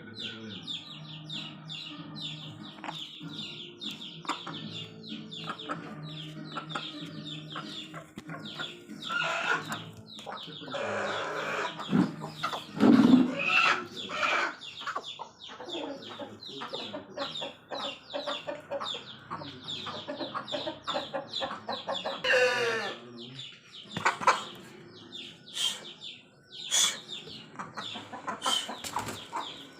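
Aseel chickens clucking and calling in quick short notes, with a louder run of calls midway and one longer call that falls in pitch about 22 seconds in.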